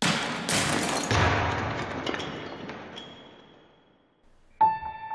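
A sudden smashing crash with a heavy thud, fading away over about four seconds. Piano music comes in near the end.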